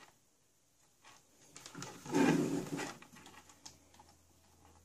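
Light clicks and rustling as multimeter probe tips and test leads are handled and tapped against a bench power supply's banana-jack terminals during a continuity check between the outputs and the earth terminal. The handling is loudest about two seconds in. A faint low hum comes in over the second half.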